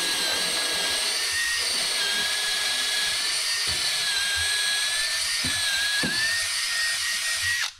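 Makita cordless drill running steadily with a 3/8-inch twist bit, boring a bolt hole through a 2x4 platform frame and leg; the motor whine wavers slightly in pitch under load and stops suddenly near the end.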